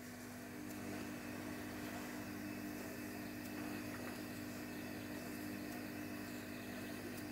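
Faint steady hum with a soft hiss underneath: a kitchen's machine-like background noise, with no distinct handling sounds.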